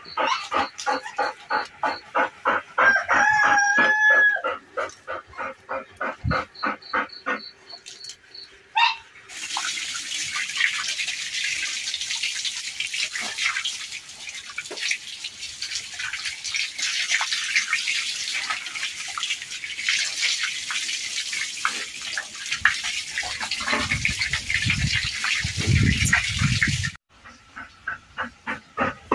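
A Labrador Retriever panting rhythmically during its bath, then a steady stream of water splashing onto its soaked coat for about seventeen seconds, with the panting coming back near the end. A short wavering call sounds about three seconds in.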